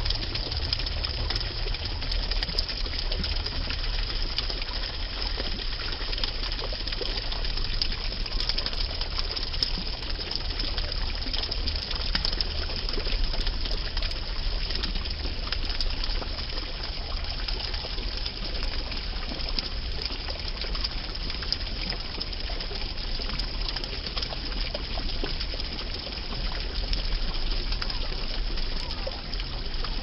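A stream of water pouring onto a sago palm's cone and fronds, splashing in a steady gush, with a low steady hum underneath.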